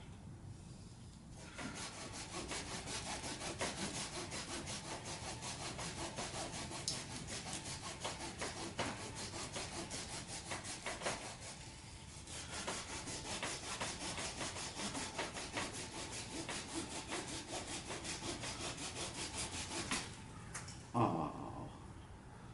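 Hand saw cutting through a dead stub of very hard American hornbeam (ironwood) wood, in quick, even back-and-forth strokes. The sawing pauses briefly about halfway through and stops shortly before the end, where there is one short, louder sudden sound.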